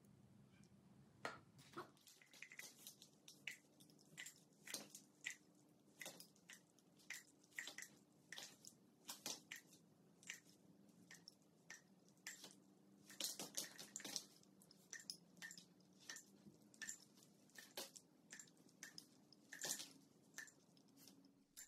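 Faint, irregular small splats and ticks of liquid acrylic paint dripping and flicking onto canvases and cardboard, a few a second, over a faint steady hum.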